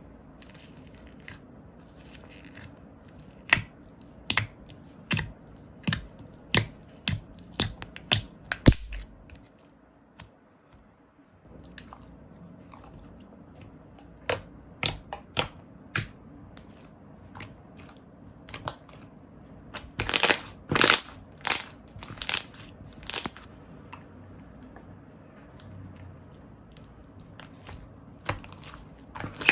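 Slime being pressed and played with by hand, giving a series of sharp clicking pops, about two a second, in bursts separated by pauses. The loudest pops come as a group of four about two-thirds of the way through.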